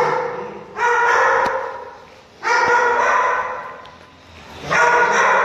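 A dog barking three times, about two seconds apart, each bark starting suddenly and trailing off slowly.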